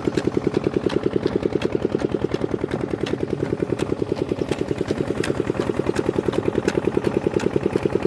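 Single-cylinder stationary diesel engine running steadily under belt load, driving a village flour mill, with an even chugging beat of about eight firing pulses a second. Light, scattered clicks sound over it.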